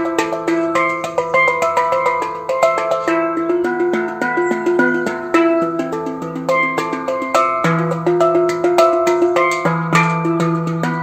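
Instrumental film-score music: a quick, even stream of short ringing notes over held low bass notes.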